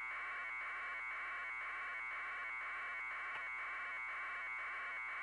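Steady static hiss from a live aerial video transmission feed, with a faint regular pulsing about twice a second.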